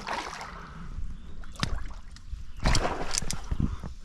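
Water sloshing and splashing in irregular bursts, with a few sharp knocks, as a large hooked pike thrashes at the surface while being played in; the splashing is loudest a little under three seconds in.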